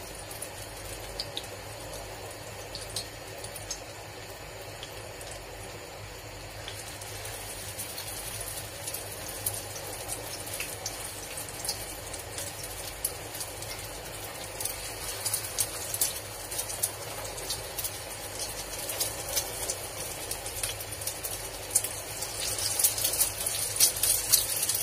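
Egg-dipped potato cutlets (aloo tikki) shallow-frying in oil on a flat griddle (tawa): a steady sizzle with sharp crackles that grow denser and louder in the second half as more cutlets go into the pan.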